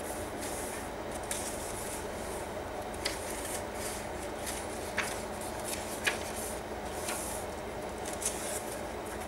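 Paper pages of a handmade junk journal being turned and pressed flat by hand: soft rustling with a few short crisp flicks of paper, over a steady low hum.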